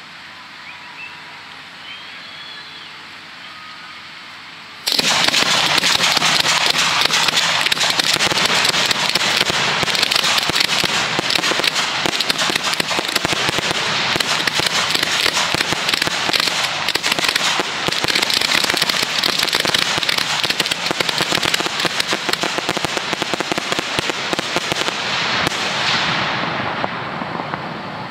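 Display fireworks firing in a dense, continuous barrage of rapid crackling reports. The barrage starts abruptly about five seconds in, after a quieter stretch, and dies away near the end.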